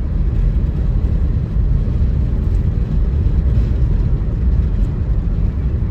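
Steady low rumble of a moving vehicle: engine and road noise.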